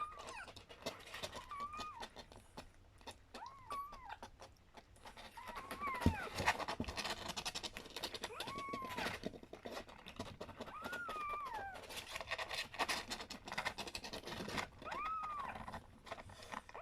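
A four-week-old kitten mewing over and over, short high cries that rise and fall, about one every one and a half to two seconds. Small scratching and rustling clicks run under the cries, with one dull thump about six seconds in.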